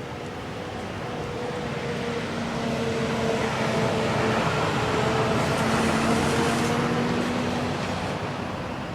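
A vehicle going by: a rushing noise with a low steady hum that builds to its loudest about six seconds in, then fades.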